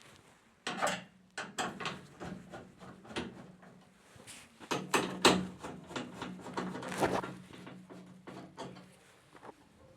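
Irregular knocks, clicks and clatter of parts being handled while a dryer is worked on, over a faint steady low hum.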